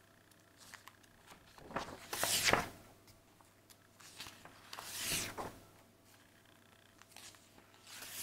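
Pages of a large picture book being handled and turned: paper swishes and rustles, the loudest about two seconds in, another around five seconds, and a last one at the end.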